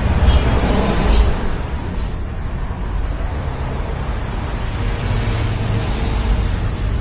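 Honda Vario 150 scooter running, a steady dense mechanical noise with strong low end and a couple of brief louder moments in the first second or so.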